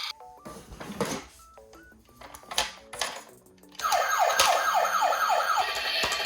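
A toy emergency vehicle's electronic siren comes on about four seconds in and sounds as a fast run of falling wails, about four a second. Before it there is a quiet, plinking melody of single stepped notes with a few clicks.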